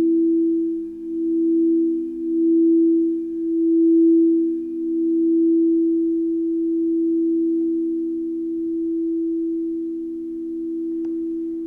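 Crystal singing bowls ringing on as a sustained low hum of two close pitches that beat against each other, so the sound swells and fades every second or two; the pulsing eases and the tone softens toward the end, with a faint click shortly before it ends.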